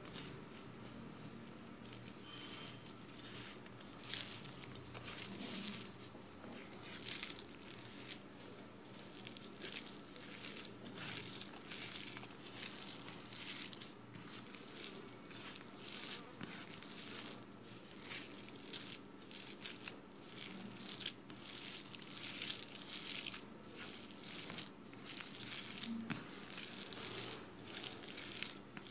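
A bare hand kneading and squeezing raw minced mutton mixed with chana dal paste, chopped onion and mustard oil on a steel plate, with repeated irregular squeezes about once or twice a second.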